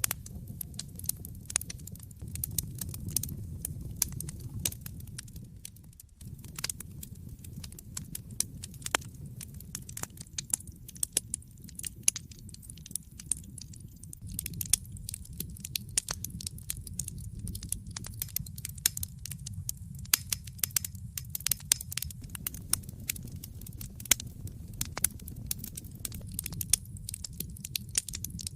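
Wood fire burning in a fireplace, with a low steady rumble of flames under frequent irregular crackles and occasional sharper pops.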